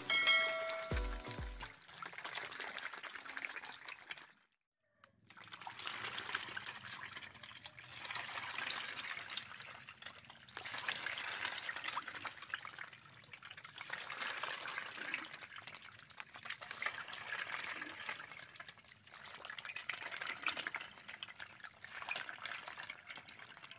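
Water splashing and churning as a dense crowd of young catfish thrashes at the pond surface, rising and falling in surges every few seconds. It opens with the end of a short musical jingle and a couple of dull thumps, then cuts out briefly before the splashing.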